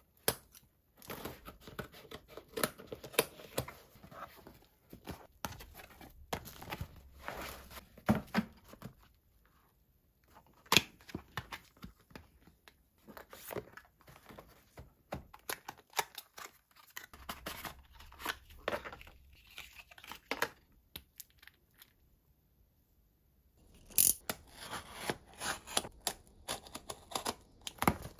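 Cardboard boxes and plastic packaging being handled and opened: rustling, crinkling and tearing, with scattered sharp knocks and clicks from boxes and product cases. There is a short lull about three quarters of the way through.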